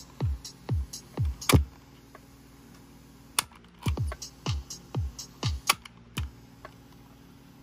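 Music from a cassette tape played on a Philips AQ6492 personal stereo through a Bose speaker, with a thudding kick drum beating about twice a second and a short break in the beat in the middle. The owner hears slight wow and flutter in the playback and puts it down to a new drive belt not yet bedded in.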